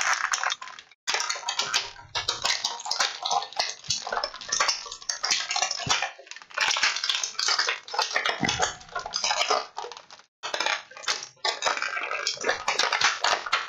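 Clear plastic toy packaging crinkling and crackling as it is handled and pulled apart: a dense stream of sharp crackles, pausing briefly about a second in and again about ten seconds in.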